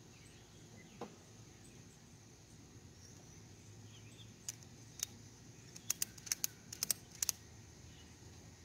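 Ratchet strap being cranked tight: a few sharp metallic clicks, then a quick run of about eight clicks near the middle, over a steady drone of insects.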